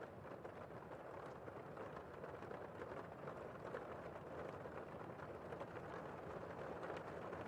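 Heavy rain heard from indoors: a steady, muffled hiss of many drops with the high end dulled, flecked with faint patters of single drops.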